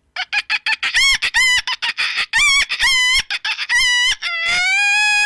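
A boy imitating a chicken with his voice: a quick run of short clucks, then from about four seconds in a long rooster crow, rising slightly in pitch.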